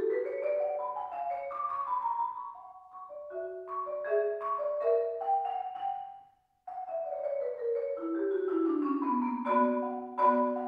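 Solo concert marimba played with mallets: fast runs of single ringing notes that climb and fall through the range. The playing drops out to silence for a moment a little past halfway, then the runs resume.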